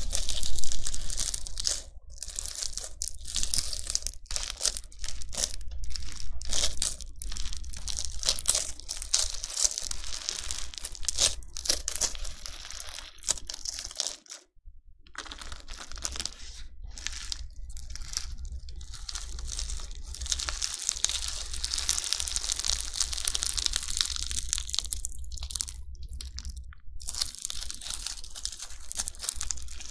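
Crunchy bingsu slime being worked by hand, a dense run of irregular crackling and crunching with many small pops. The crackling breaks off briefly about halfway and then carries on.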